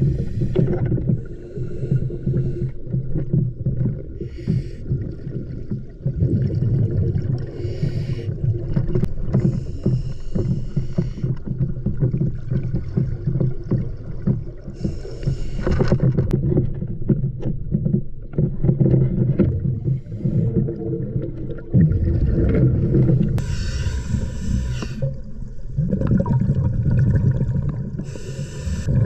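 A scuba diver's breathing heard underwater: a hiss from the regulator on each inhale every few seconds, between low, rumbling gurgles of exhaled bubbles.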